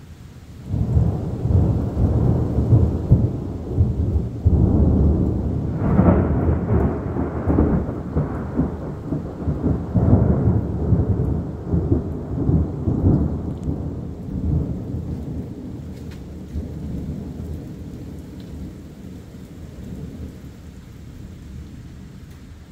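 A long peal of thunder that breaks suddenly about a second in, rumbles loudly for several seconds, and then slowly fades, over steady rain.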